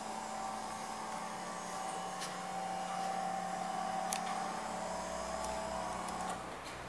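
Battery-powered electric lift motor of a semi-electric stacker running with a steady hum as it drives the platform lift, worked from the push-button pendant. The hum stops near the end, where a lower hum carries on.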